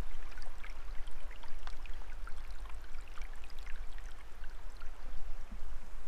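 A stream running and babbling, with many small splashes, under a steady low rumble.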